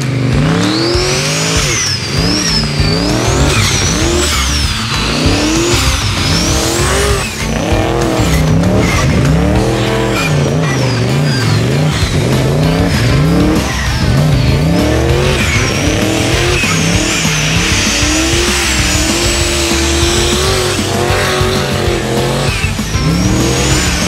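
Twin-turbo LS V8 being revved up and down over and over as the car is thrown around a dirt arena, with a high whine that rises and falls along with the revs.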